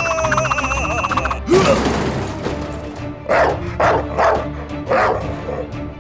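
Background music with steady held notes, overlaid by cartoon-style sound effects: a wavering pitched warble at the start, a loud burst about a second and a half in, then four short sharp bursts in the second half.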